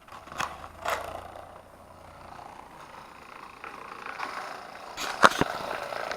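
Two clicks, then a small computer-fan motor spinning a 3D-printed propeller with a steady whir. A sharp knock comes a little after five seconds in.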